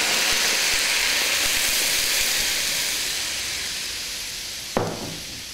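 Milk poured into a hot pan of bread pieces browned in ghee, hissing and sizzling loudly as it hits the hot metal, the hiss slowly dying away. A single knock near the end.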